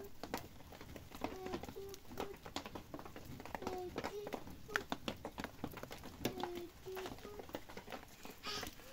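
A dove cooing: short, low, steady notes in groups of three or four, repeated about every two and a half seconds. Irregular soft ticks of dripping water or light rain patter sound throughout.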